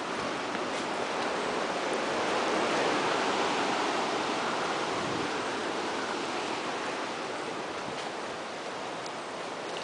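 A steady rushing noise that swells a little a few seconds in and then eases off.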